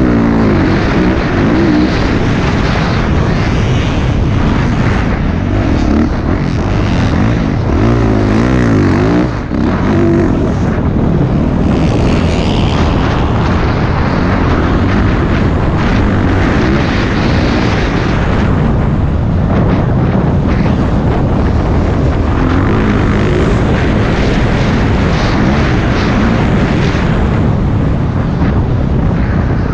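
Yamaha YZ450F's single-cylinder four-stroke engine revving up and down as the dirt bike is ridden, over a dense steady rush of noise.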